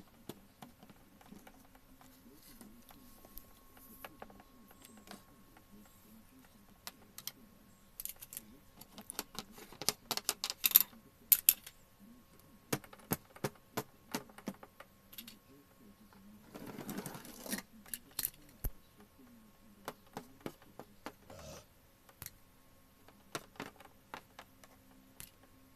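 Handling noise: irregular sharp clicks and light taps of small hard objects, thickest about ten seconds in, with a brief rustle about seventeen seconds in.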